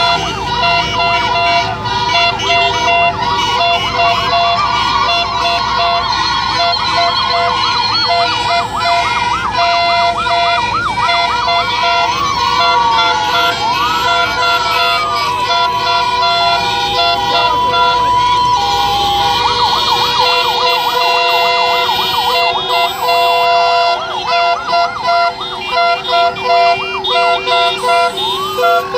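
Several emergency-vehicle sirens yelping and wailing over held vehicle horns and running engines. A fast warble runs through most of it, with falling siren sweeps near the middle and at the end.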